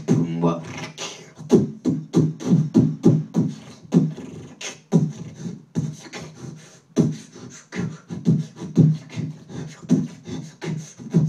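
Freestyle dubstep beatboxing into a microphone: rapid vocal kick and snare strokes, several a second, laid over low, pitched bass tones.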